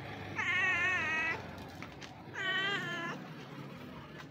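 Domestic cat meowing twice, each meow about a second long with a wavering pitch.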